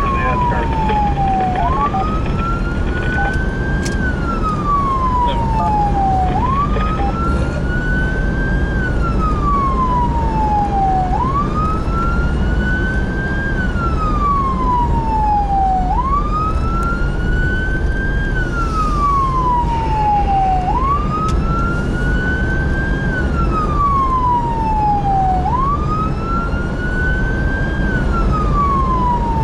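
Emergency vehicle siren on a slow wail: each cycle climbs quickly in pitch and then falls slowly, repeating about every five seconds. Heard from inside the cab over a steady engine and road rumble.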